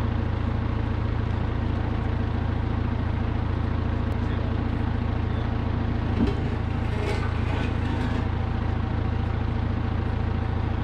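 A farm vehicle's engine running at a steady speed, a low even drone, with a single knock about six seconds in.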